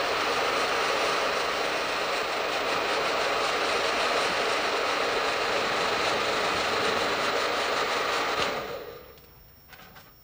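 Handheld hair dryer blowing steadily, switched off about eight and a half seconds in, its noise winding down quickly.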